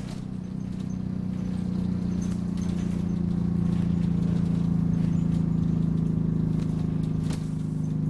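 Optare Solo single-deck bus running under way: a steady low engine drone whose pitch dips slightly mid-way and rises again near the end, with faint high squeaks above it.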